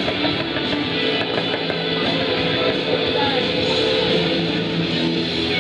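Rock music with guitar.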